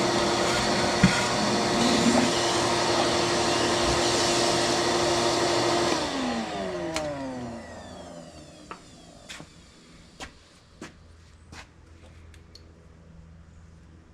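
Vacuum cleaner running steadily, switched off about six seconds in, its motor winding down with a falling pitch, followed by a few light clicks and taps.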